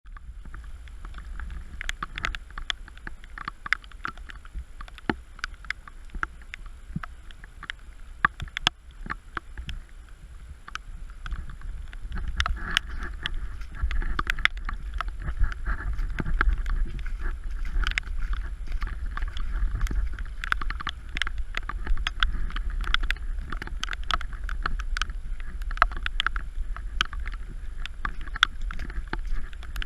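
Heavy rain, with many sharp drops striking nearby surfaces and wind buffeting the microphone. The rain grows heavier about twelve seconds in.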